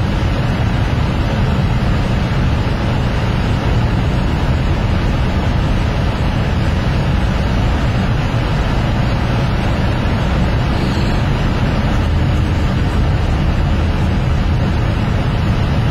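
Steady engine and road rumble of a car, heard from inside its cabin while driving.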